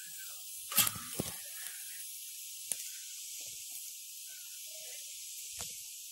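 Egg mixture sizzling softly in a frying pan as a steady hiss, with a few light knocks of a spoon or hand against the pan, two close together about a second in and one near the end.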